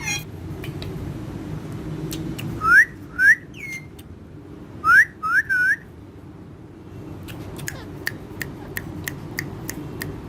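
Pet parrot whistling: two quick runs of three short rising whistles each, with faint ticks scattered between them.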